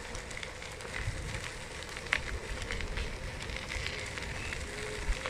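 Kick scooter wheels rolling over a gravel path: a steady crackling rolling noise with scattered small clicks from the grit under the wheels.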